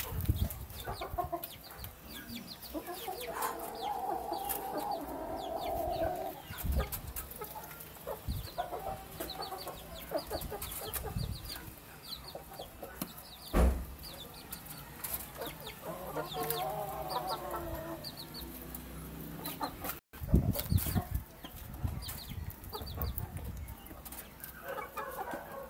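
Chickens clucking while they peck at rice, with many short, sharp beak taps on the floor and one loud thump about halfway through.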